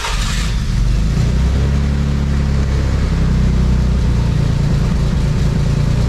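Nissan 300ZX's VG30DE V6 engine running steadily just after starting up, its idle pitch shifting a little in the first couple of seconds.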